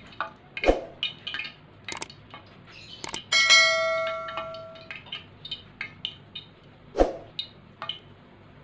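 Water droplets popping and crackling in a pan of heating vegetable oil, scattered sharp pops thinning out: when the popping stops, the oil is hot enough to fry. About three seconds in, a bell-like chime sound effect rings loudly and fades over about two seconds.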